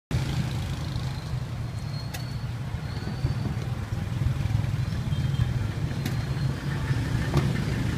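Steady low rumble of motor traffic, with a few faint clicks.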